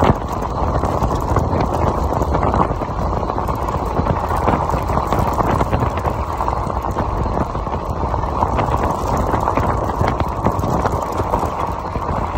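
Fat tyres of an electric fat bike rolling over loose gravel: a continuous crunching and clattering with scattered small knocks, over a steady low rumble.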